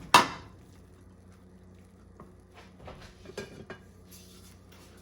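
A bowl clattering loudly against a hard surface, then a few light taps and scrapes of serving spoons.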